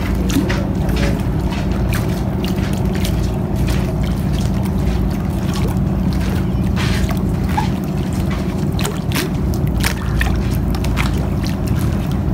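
Steady low rumble with water lapping and slapping against a concrete riverbank in short, irregular splashes.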